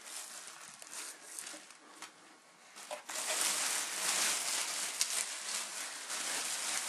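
Black plastic garbage bag rustling and crinkling as a toddler tugs it off a wrapped ride-on bike, with a few small clicks; it dips quieter around two seconds in, then crinkles on steadily.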